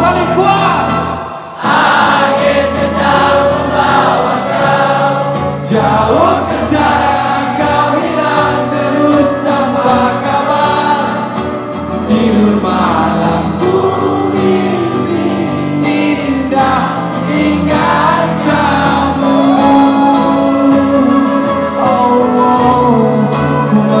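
Live band playing a ballad on acoustic guitar, flute, cello and drums, with many voices singing along together, as in a crowd sing-along. The music drops briefly about a second and a half in, then carries on loud.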